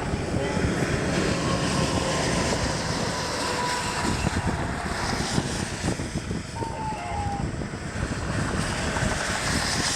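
Gusty storm wind buffeting the microphone, an uneven low rumble that rises and falls.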